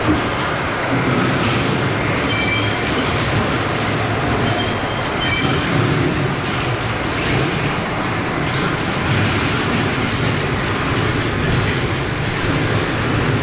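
Factory machinery running with a steady, dense clatter, with two brief high squeals about two and five seconds in.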